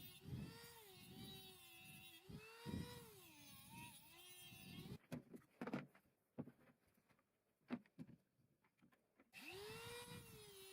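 A small electric power tool's motor running with a high whine whose pitch dips and recovers as it is pressed on the work, cutting out about five seconds in; a few light knocks follow, then the motor starts up again near the end.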